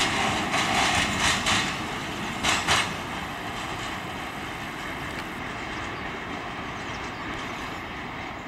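Freight train of open gondola wagons rolling away on the track: wheel clatter with repeated knocks over the first three seconds, then a steadier, quieter rumble as the train recedes.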